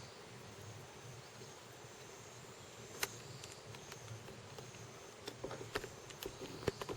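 Faint outdoor ambience with insects calling in short, repeated high notes over a low background hum. A sharp click comes about three seconds in, and several smaller clicks and taps follow near the end.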